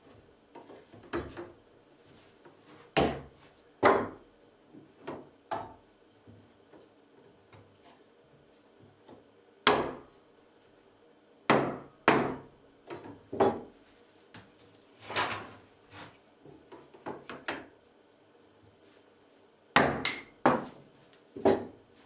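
Irregular sharp wooden knocks and taps from hand tools and wood being handled on a workbench, some coming in quick pairs.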